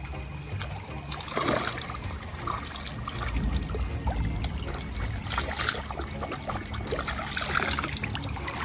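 Shallow stream trickling over stones, with brief splashes as a fish is washed in the water by hand.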